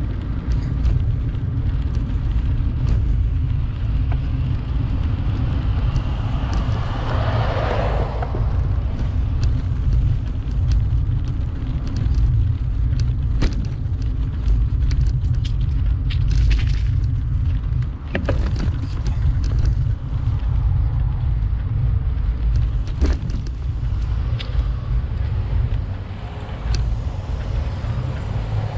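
Wind buffeting the microphone of a camera riding along on a bicycle: a steady low rumble with light rattles and clicks, and a brief swell of hiss about seven seconds in.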